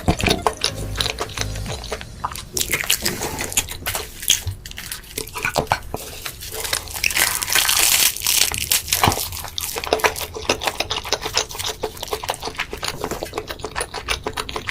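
Close-miked chewing and biting of crispy food, a dense run of sharp irregular crunches.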